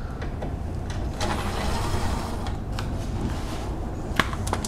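Cordless power driver running for about a second and a half as it backs a Torx screw out of a car's underbody engine cover, followed by a couple of light clicks near the end.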